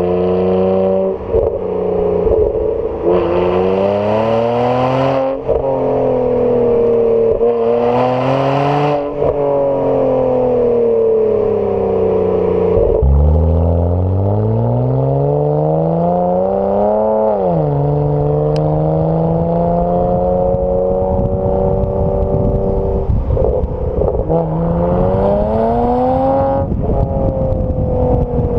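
BMW 335i's turbocharged straight-six through an AC Schnitzer rear silencer, heard close to the tailpipes while driving. The engine note climbs under acceleration and drops sharply at each upshift, several times over, with a spell of steady cruising in the middle. Road and wind noise run underneath.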